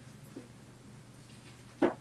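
Scissors trimming DTF transfer film over a low steady hum, mostly faint, with one short sharp snip-like sound near the end.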